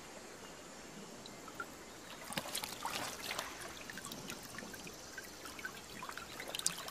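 River water splashing and trickling as people move in it: a faint steady hiss, then from about two seconds in a run of light, irregular splashes and drips.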